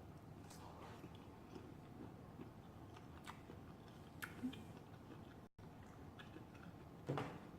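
Faint chewing and mouth sounds of someone eating, broken by a few short clicks, the loudest near the end.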